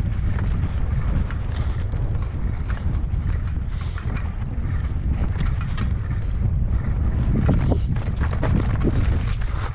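Wind buffeting the microphone in a heavy, steady low rumble, with scattered small clicks and knocks over it.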